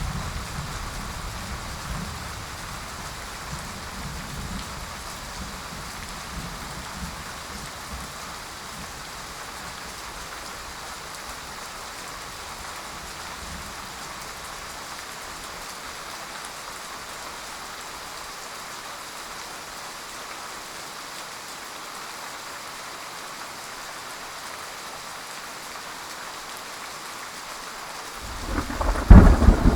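Steady heavy rain, with a low thunder rumble dying away over the first few seconds. Near the end a loud clap of thunder breaks in and rumbles on.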